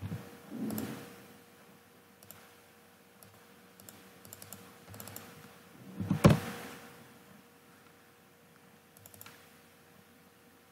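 Scattered clicks of a computer mouse and keyboard, with a louder thump about six seconds in, over a faint steady hum.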